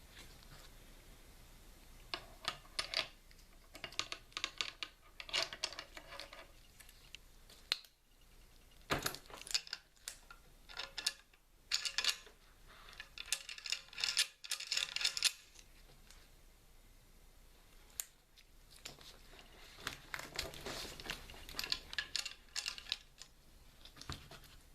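Light clicks and rattles from a Ruger Mini-14 rifle being handled, coming in several bursts with pauses between.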